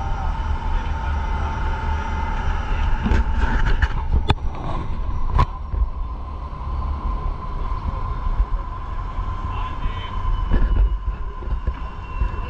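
Boat engine running steadily: a deep rumble under a constant hum, with a couple of sharp clicks about four and five seconds in.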